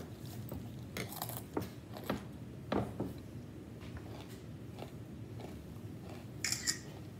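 A person chewing a mouthful of cereal with milk: soft crunching clicks, closest together in the first three seconds, then sparser. A short hiss about six and a half seconds in.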